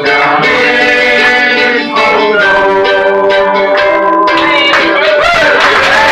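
Instrumental music with held chords, the closing bars of a live tribute song. About five seconds in, a noisy haze of applause and voices begins under the last notes.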